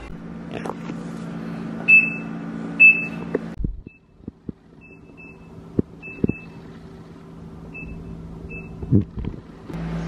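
Electronic beeps from home appliance control panels: two loud beeps, then after a cut a series of short, fainter beeps at the same pitch as buttons on an automatic washing machine's panel are pressed, with a few light clicks and knocks. A steady low hum runs under the first few seconds.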